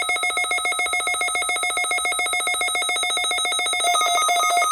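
NOAA Weather Radio weekly test alert signal: a loud electronic tone, pulsing rapidly. About four seconds in, a second tone pattern joins it.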